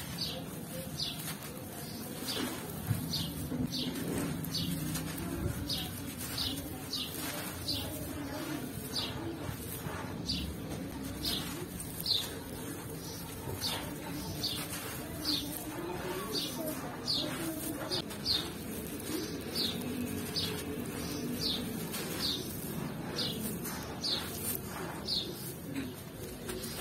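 Hands crumbling dry blocks of sand and gritty red dirt: irregular gritty crunching, with grains and small gravel pouring onto sandy ground. Over it a bird gives a short, high, falling chirp about once a second, with low cooing underneath.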